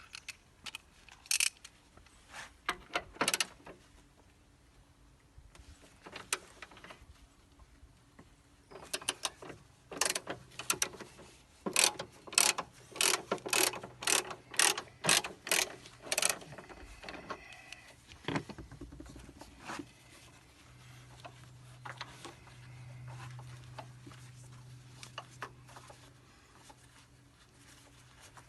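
Hand tools clicking and knocking on car parts while the AC condenser is being removed: scattered sharp clicks, with a quick run of them about ten to sixteen seconds in. A low steady hum comes in near the end.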